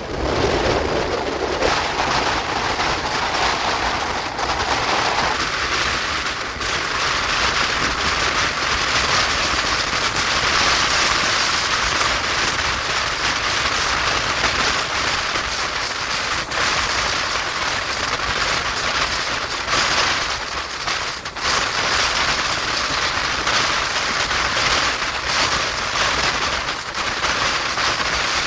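Steady rush of wind and wheel-on-rail noise at the open door of a moving express passenger coach, a loud hiss with a few sharp clicks from the track.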